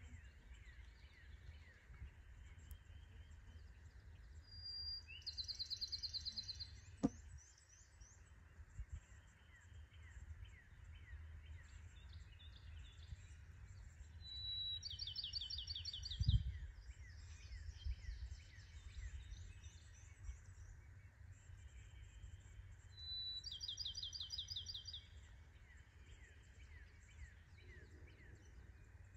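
A songbird repeating the same short song three times, each a brief opening note followed by a quick trill of repeated notes, over a steady low rumble and a faint chorus of distant calls. Two soft thumps about seven and sixteen seconds in.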